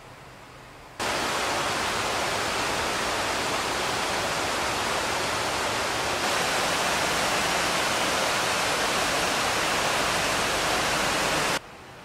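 Steady rushing of flowing river water, an even noise with no pitch that starts abruptly about a second in and cuts off just before the end.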